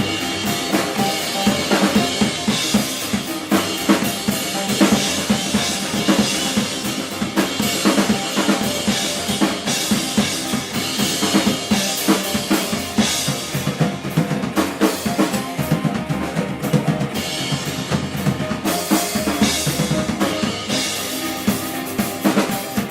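Live band playing loud, with the drum kit to the fore: kick and snare driving a busy beat under the rest of the band.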